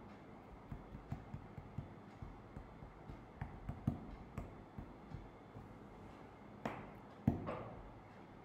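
Quiet, irregular light clicks and taps, a few a second, with a louder knock about seven seconds in.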